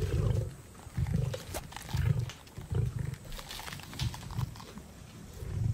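Lions growling while feeding on a carcass: about six short, low growls, roughly one a second.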